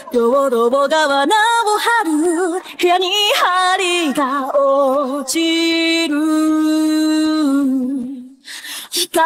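Isolated female lead vocal of a Japanese anime opening song, sung with no instruments. The voice glides through a run of bending notes, holds one long steady note from about the middle, drops away briefly near the end, then comes back in.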